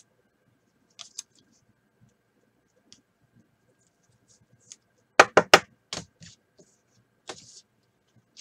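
A few sharp clicks and taps from trading cards being handled off-camera, with a quick run of three loud clicks about five seconds in and a few softer ones after.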